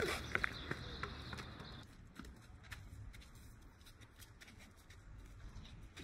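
Faint, scattered taps and scuffs from a pickup basketball game on an outdoor court, the sound of sneakers and the ball on the asphalt, over a low steady background rumble. A thin high steady tone cuts off about two seconds in.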